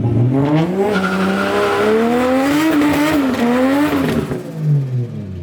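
Nissan 180SX's engine revving hard, its pitch climbing and wavering, with the rear tyres spinning and squealing in a burnout. The revs fall away about four seconds in.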